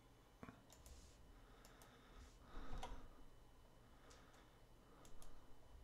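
Faint, scattered clicks of a computer mouse and keyboard, about half a dozen, the loudest about two and a half seconds in.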